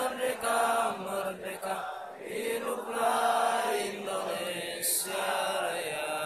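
Many voices chanting together in unison, in phrases of about two seconds with held notes and short breaks between them.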